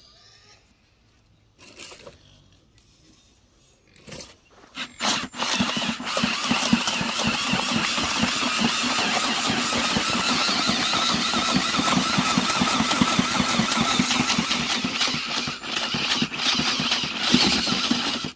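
Drill-driven paddle mixer stirring mortar in a 5-gallon plastic bucket. It gives a few short bursts about four seconds in, then runs steadily with a whine over the scrape and churn of the mix, with brief pauses near the end.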